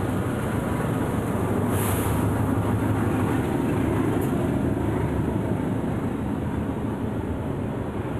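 A train passing: a steady rumble that swells over the first few seconds and then slowly fades, with a short hiss about two seconds in.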